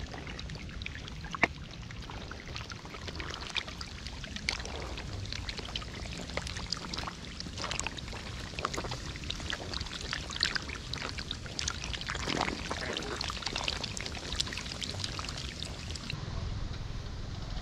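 Shallow water splashing and trickling in irregular small bursts.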